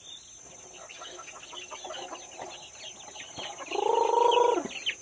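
Village chickens: chicks peeping over and over in short, high, falling notes, and about three-quarters of the way through one chicken gives a loud, drawn-out call lasting about a second.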